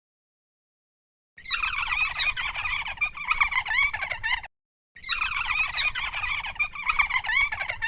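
A dense chatter of many short, high chirps and warbles, played as the sound effect for a flea. It comes in two stretches of about three seconds each, with a short break between them.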